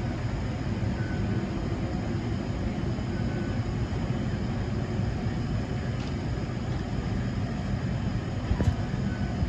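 Steady low rumble and hum of an underground metro tunnel, unchanging throughout, with a faint click about eight and a half seconds in.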